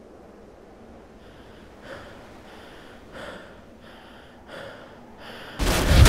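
A person breathing hard in quick, evenly spaced breaths, about one and a half a second. Near the end, loud music with deep bass cuts in suddenly.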